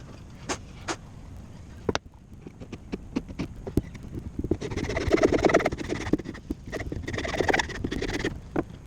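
Hand-tool work on wood: a few separate sharp knocks and taps, then about four seconds of rapid knocking and rasping from about halfway through.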